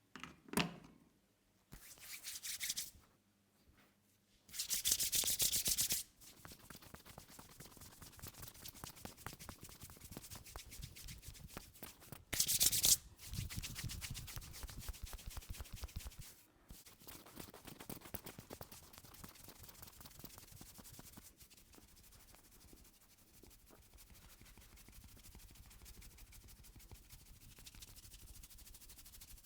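Hands rubbing briskly over hair and scalp in a head massage: close, dry friction noise. It is louder for a second or two about five seconds in and again about halfway through, then settles into lighter, steady rubbing.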